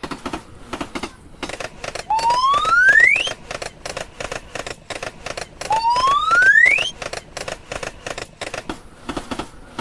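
Cartoon sound effects: a fast, irregular clicking clatter, with two rising whistle-like glides, one about two seconds in and one about six seconds in.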